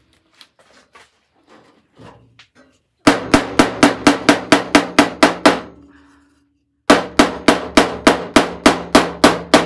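Quick hammer taps on the steel door panel of a 1958 VW Type 2 bus, working a dent back out with a claw hammer held against the metal, the panel ringing under each blow. The taps come in two runs of about a dozen, roughly five a second, with a short pause between them.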